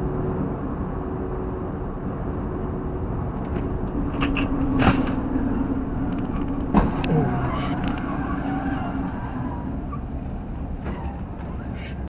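Steady road and engine noise inside a vehicle's cabin at freeway speed. Two sharp knocks come about five and seven seconds in, and a steady tone runs for a few seconds in the middle.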